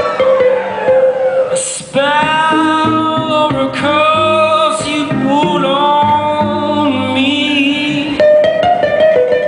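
Live band music: guitar accompaniment under a high melodic line that slides between held notes. The music drops briefly just before two seconds in, then comes back.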